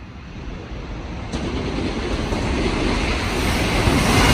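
JR Freight EF210 electric locomotive hauling a container freight train, approaching at speed; the rumble of its wheels on the rails grows steadily louder, with a sudden step up about a second in.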